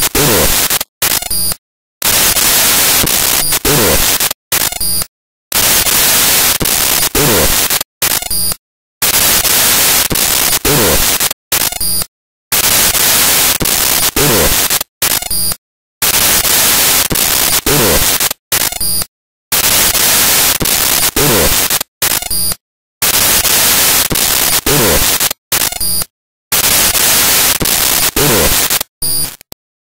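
Loud hissing static that repeats in a cycle about every three and a half seconds, broken by short silent gaps, with a low tone falling in pitch once in each cycle.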